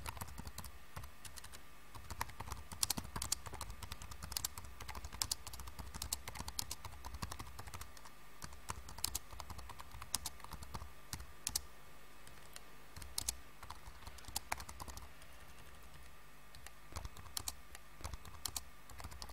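Typing on a computer keyboard: scattered, irregular keystrokes over a faint steady hum.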